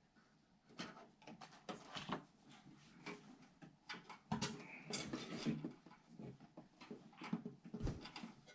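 Irregular light clicks, taps and rustles of hands handling computer parts and cables during a PC build.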